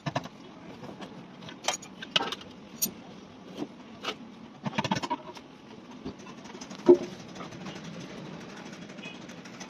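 Metal hand tools clinking and knocking on engine parts during an engine teardown, in scattered short strikes with the loudest knock about seven seconds in, over a steady low background hum.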